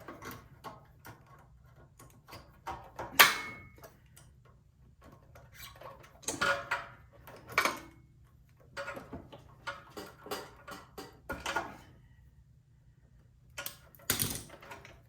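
Scattered clicks and knocks of hand work on a snow blower's carburetor as its gas line is pulled off: a sharp click about three seconds in, then short clusters of handling noise.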